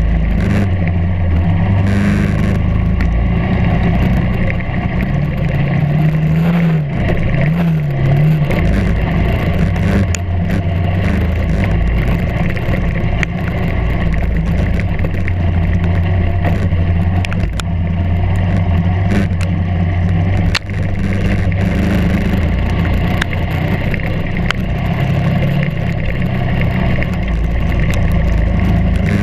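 Kart cross off-road buggy engine running under way, heard from on board. Its revs waver down and up briefly about seven seconds in, with scattered sharp knocks as it crosses the rough dirt track.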